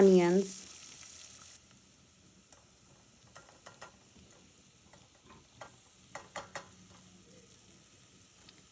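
Diced vegetables frying in oil in a pan, sizzling at first; the sizzle cuts off about a second and a half in. Then comes the faint occasional clicking of a spoon stirring against the pan.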